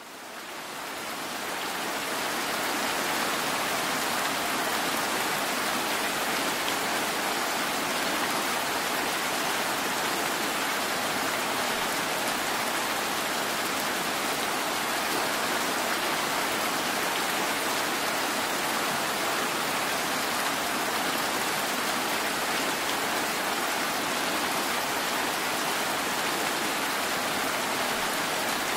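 Steady rain falling, an even hiss that fades in over the first two seconds.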